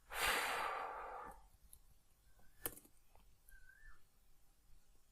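A man's long breathy sigh into the microphone, fading out over about a second and a half, then a single sharp click near the middle.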